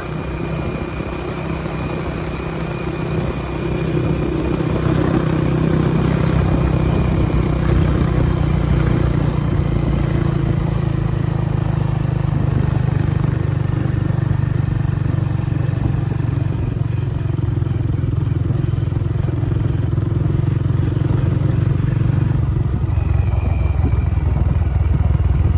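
Motorcycle engine running steadily while riding, with wind and road noise; it gets louder about four seconds in.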